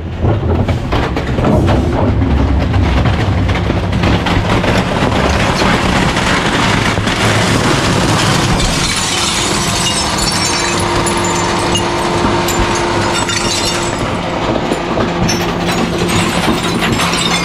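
Rear-loader garbage truck's hydraulic packer cycling, its blade sweeping down through the steel hopper with a steady hydraulic hum, over the crunching and clattering of ceramic dishes being crushed and scraped along the floor.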